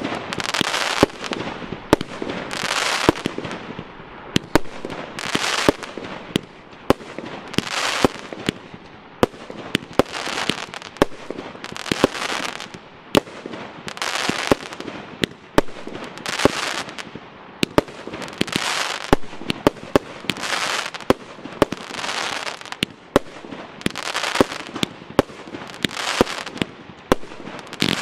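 A 36-shot, 30 mm consumer firework battery (cake) firing shot after shot, about one a second. Each shot is a sharp bang followed by a dense crackling that dies away within a second as the stars burst into small popping crackles.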